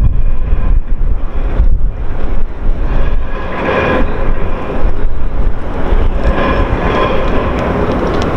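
Isuzu fire pumper's diesel engine running steadily with a deep rumble, joined twice by a whine that swells and fades, once in the middle and again near the end.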